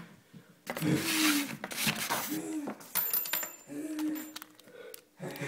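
A person's short wordless voice sounds, with rustling and a few sharp clicks as the phone camera is handled.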